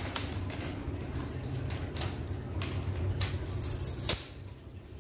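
Cardboard box and paper bill being handled: scattered rustles and light taps, with a louder rustle about four seconds in, over a steady low hum.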